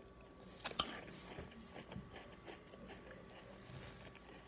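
Faint chewing of a mouthful of breakfast cereal, with a couple of sharp clicks just under a second in.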